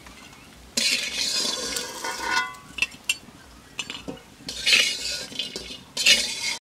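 Metal spatula scraping against a metal kadai as fried lentil dumplings (bori) are scooped out, in four scraping strokes with a slight metallic ring, the longest starting about a second in.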